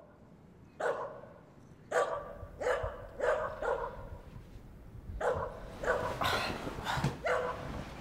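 A West Highland terrier barking repeatedly: about ten sharp barks in irregular runs, over a low steady hum.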